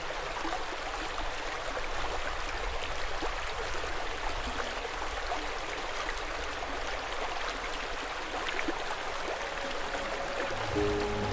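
River water flowing steadily, an even hiss of current. Music comes in near the end.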